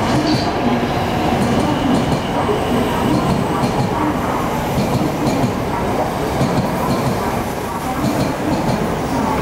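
Shinkansen bullet train running slowly past over the station tracks: a steady rumble of wheels on rail with some clacking over the rail joints.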